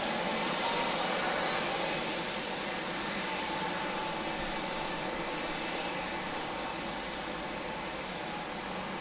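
Jet airliner engines: a steady rush of jet noise with a faint high whine, swelling slightly about a second in and then easing off.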